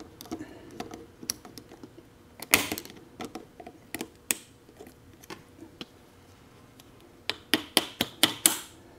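Light metallic clicks and ticks of snap ring pliers working a tight second-gear snap ring into its groove on a T5 five-speed transmission main shaft. A quick run of sharp clicks comes near the end.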